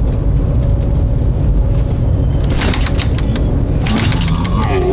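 Loud, steady low rumble of the Shanghai maglev train's cabin at speed, with a few sharp knocks about two and a half seconds in and again near four seconds.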